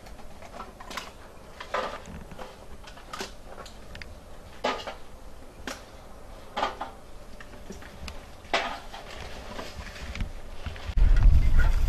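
Rubbish being picked through by hand: irregular clinks, knocks and crinkles of cans, plastic and bags as they are gathered into a tarpaulin sack. A loud low rumble comes in near the end.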